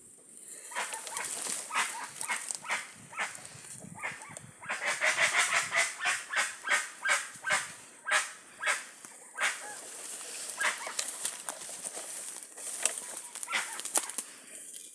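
A flock of guans (jacu) calling: a long run of repeated honking calls, densest and loudest in the middle, at about two to three a second.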